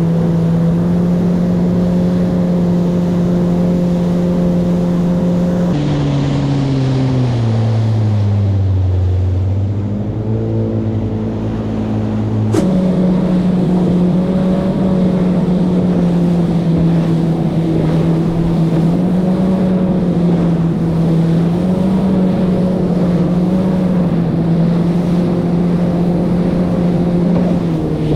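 Jet ski engine running steadily at cruising speed, with wind and water rushing past. About six seconds in the engine eases off and its pitch drops in steps, then it comes back up to speed about twelve seconds in and holds there.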